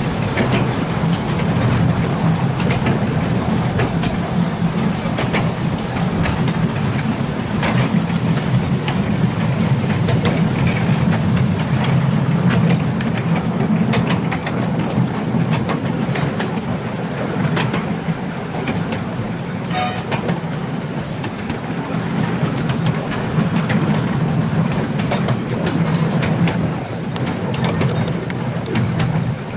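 Ride on a 7¼-inch gauge miniature railway train pulled by a small diesel locomotive: a steady low engine drone, with the wheels clicking irregularly on the track.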